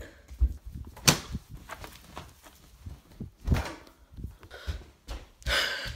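Scattered knocks and low thumps with one sharp click about a second in, from a phone being picked up off a tiled floor and carried, ending in a short rush of handling noise.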